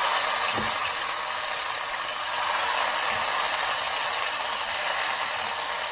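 Strips of venison tenderloin sizzling steadily in a hot frying pan, with a couple of faint soft thuds as more strips are laid in.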